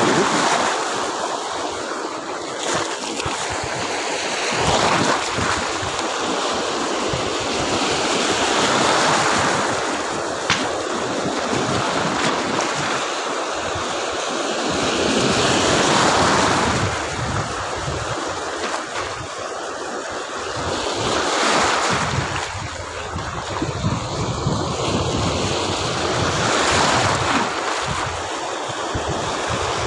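Small surf breaking and washing up a beach, a continuous rush that swells and eases with each wave every five or six seconds.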